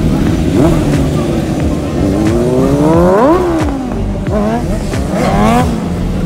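Sport motorcycle engines: a steady idle underneath while a bike is revved hard twice, the pitch climbing to a peak about three seconds in and dropping, then climbing and falling again near the end.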